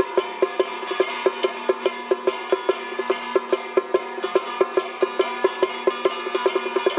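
Traditional Taiwanese temple-troupe music: a fast, even beat of about four to five sharp percussion strikes a second over held pitched tones.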